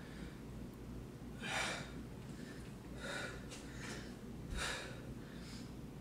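A woman breathing hard under exertion: short, noisy breaths about every second and a half.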